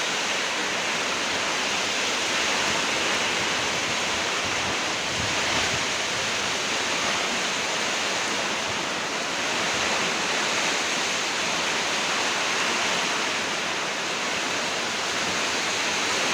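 Heavy storm rain falling steadily in an even, unbroken hiss.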